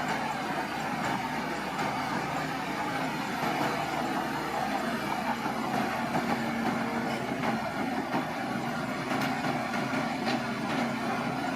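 A bulldozer's diesel engine running steadily, with its tracks giving a scatter of light metallic clicks.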